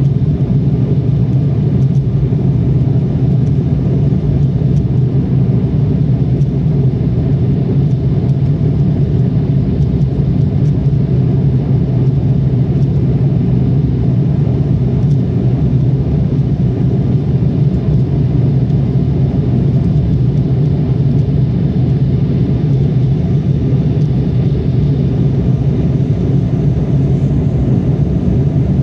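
Steady cabin noise of an Embraer E-Jet airliner climbing after takeoff, heard from a window seat: a loud, even low drone of the wing-mounted turbofan engines and rushing air, unchanging throughout.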